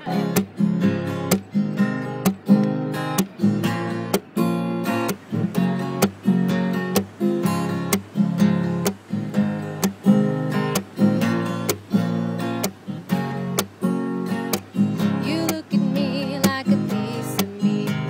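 Background music: acoustic guitar strumming a steady rhythm.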